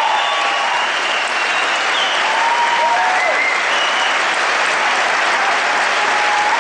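A large audience applauding steadily, with a few voices calling out over the clapping.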